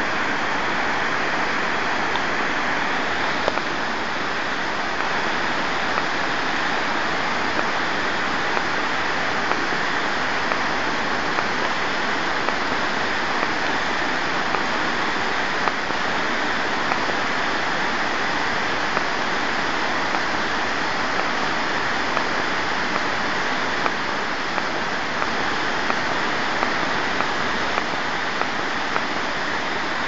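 Waterfall cascading down over rocks: a steady, unbroken rush of falling and splashing water.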